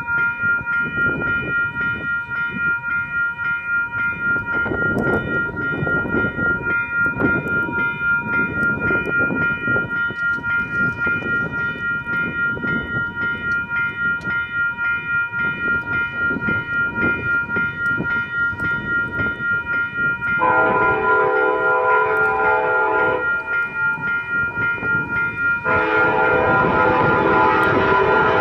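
Electronic railroad crossing bell ringing steadily, with an even pulse. Over it, a VIA Rail locomotive's horn sounds two long chord blasts, the first about twenty seconds in and the second near the end, as the train approaches the crossing.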